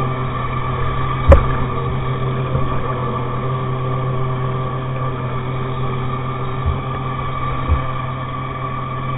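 A steady mechanical hum made of several fixed pitches that never changes speed, with one sharp, loud knock about a second in and two softer thumps near the end.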